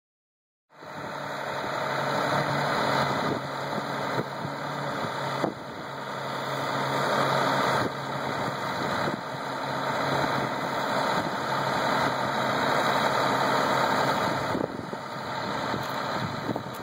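Truck engine idling steadily, starting about a second in, its level swelling and then dropping back suddenly a few times.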